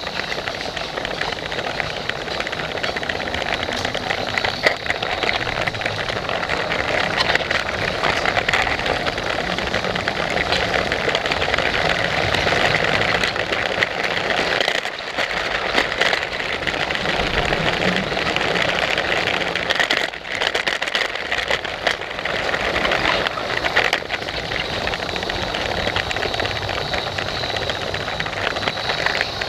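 Electric motor of a Lego freight train whirring steadily as the train runs along plastic Lego track, with faint clicks from the wheels, heard from a camera riding on the train.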